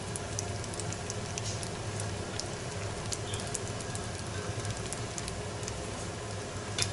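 Beef, vegetables and lagman noodles frying in a kazan over a low flame: a steady sizzle with scattered small crackles and pops.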